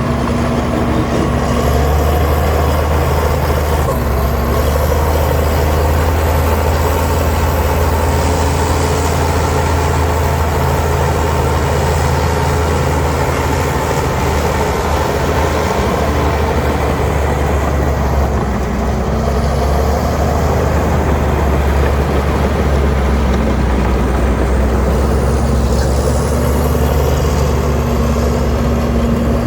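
Diesel engine of heavy earthmoving machinery running steadily under load, its note shifting slightly as the revs change. A thin high whine rises and falls above it.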